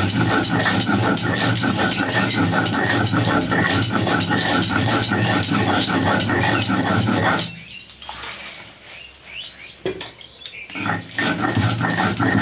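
Stone roller rubbed rapidly back and forth over a flat stone grinding slab (shil-nora), crushing fried crab and spices into a paste. It makes a fast, even run of gritty grinding strokes that stops about seven and a half seconds in, then starts again a few seconds later.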